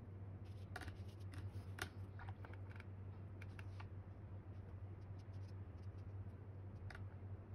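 Watercolour brush stroking across paper while laying a final glaze: a few short, faint scratchy strokes in the first four seconds and one more near the end, over a low steady hum.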